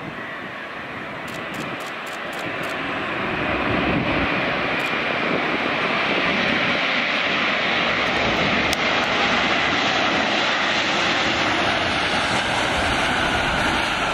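Jet engines of an Airbus A350, Rolls-Royce Trent XWBs, roaring just after touchdown as the airliner rolls out down the runway. The roar swells over the first few seconds and then holds steady, with a faint whine.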